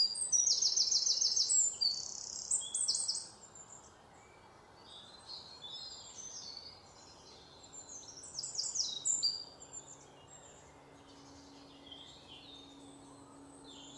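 Birds singing, a quick run of loud high chirps for the first three seconds, then quieter scattered chirps. A faint steady hum comes in about halfway through.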